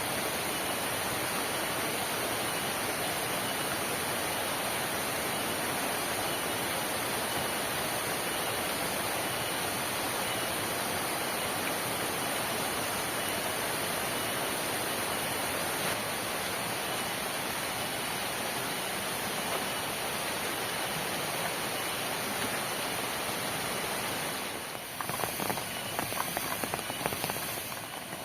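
Heavy rain falling steadily, an even hiss. About 25 seconds in, an irregular crackling of sharp clicks starts over it.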